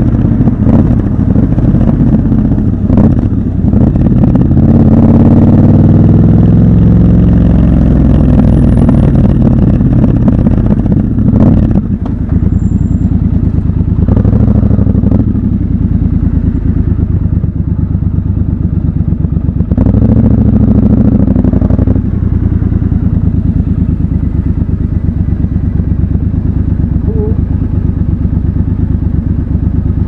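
Triumph Scrambler 1200 XC's 1200 cc parallel-twin engine running in city traffic: it accelerates about four seconds in, rises again briefly twice near the middle, then settles to a steady idle over the last several seconds.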